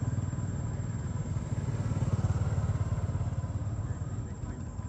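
A motorcycle engine running with a low, rapidly pulsing rumble that slowly fades toward the end.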